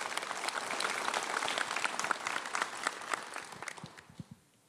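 Audience applauding, a dense patter of many hands clapping that thins out and dies away in the last second.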